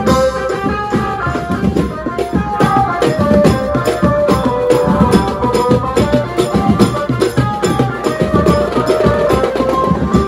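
A Mumbai banjo-party band playing: fast, dense drumming on a drum set and slung side drums, with cymbals, under a sustained melody line.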